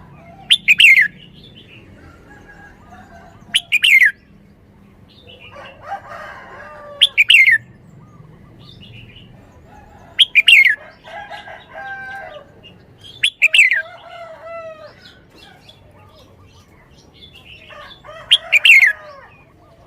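Red-whiskered bulbul singing: six loud, short phrases that drop in pitch, one every three to four seconds, with softer warbled notes between them.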